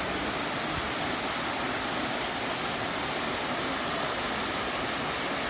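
Rushing water of a mountain stream cascade, a steady even hiss that never lets up.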